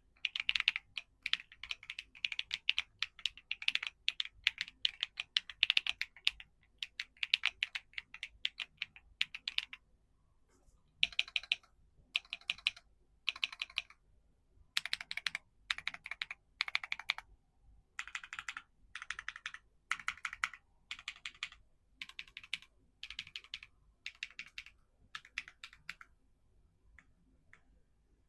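Typing on a Keychron Q1 Max mechanical keyboard with stock Gateron Jupiter Banana tactile switches. Steady continuous typing runs for about the first ten seconds. After that come short bursts of rapid keystrokes separated by pauses, with only a few scattered key presses near the end.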